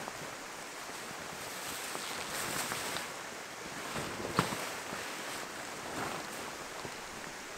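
Steady rushing outdoor noise with the rustle of a ground tent's fabric as it collapses, and footsteps crunching through dry leaves. A single sharp crunch about four and a half seconds in is the loudest sound.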